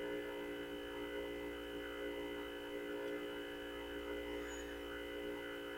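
Steady electrical hum made of several constant tones, unchanging throughout.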